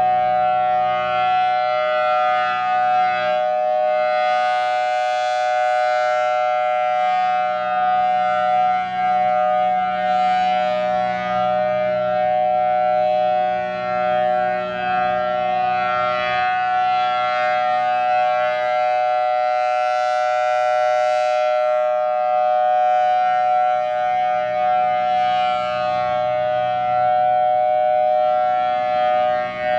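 Federal Signal Thunderbolt 1000T outdoor warning siren sounding a steady tone, two close pitches held level without winding up or down. Its sound swells and fades about every five seconds as the rotating horn sweeps past.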